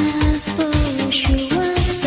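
Background music with a steady beat, about two drum strokes a second, under a held melody line that steps and glides in pitch.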